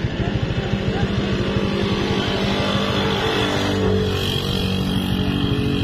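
Motorcycle engine running steadily, with a fast even pulsing and a constant low hum.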